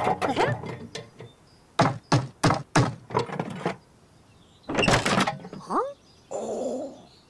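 Cartoon banging and knocking sound effects: a quick run of sharp knocks, then a louder crash followed by a short rising squeak, as of someone working with tools inside a wooden box.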